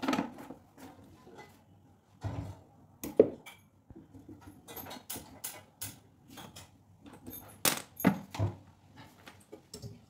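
Irregular metallic clinks, taps and knocks as copper tubing and wiring around a refrigerator compressor are handled, the sharpest about three seconds in and a cluster near the end.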